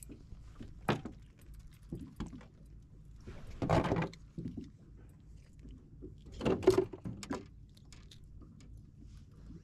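Close handling noises as a small horse mackerel on a sabiki rig is swung aboard and gripped with fish pliers. A sharp click about a second in, then two brief bursts of rustling and clattering, near the middle and again about seven seconds in.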